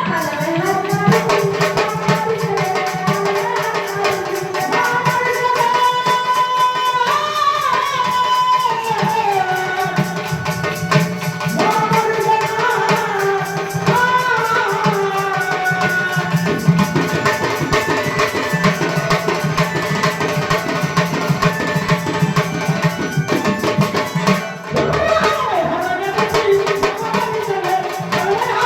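A woman singing a Marathi devotional Ramayana song to tabla-style drumming and fast, steady rattling percussion, with a short dip in the music just before the end.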